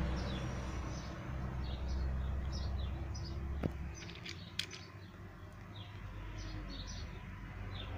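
Small birds chirping repeatedly in the background over a low steady rumble, with two sharp clicks a little before halfway through.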